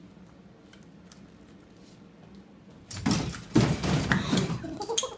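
A person falling to the floor: a sudden loud crash and clatter about three seconds in that runs on for about two seconds.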